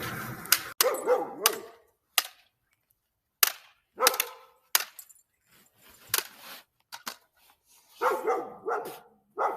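A dog barking: short barks in irregular clusters, about a dozen in all, with pauses between groups.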